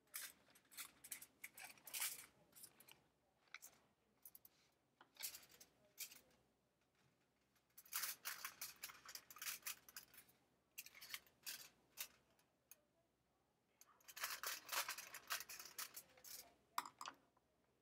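Scissors snipping through aluminium foil, the foil crinkling as it is cut and handled. The snipping comes in about five bursts of quick, crisp cuts, with short quiet pauses between them.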